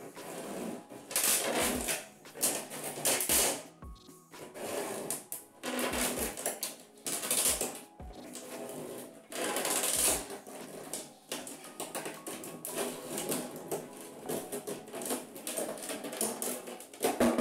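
Large plastic water jug being cut with long-handled garden shears: the plastic cracks and crunches in repeated, irregular bursts as the blades bite and close. Background music plays underneath.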